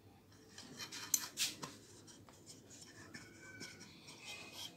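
Faint rubbing and scraping of a metal rod against the plastic end parts of a Kyocera TASKalfa drum unit as the rod is pushed in, with a few light clicks about a second in.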